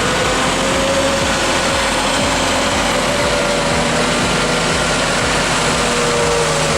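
Heavy vehicle's engine running steadily, its pitch drifting slightly up and then back down.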